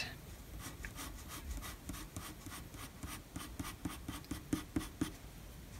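Graphite pencil scratching across paper in quick, short repeated strokes, several a second: hatching fur texture on a drawing.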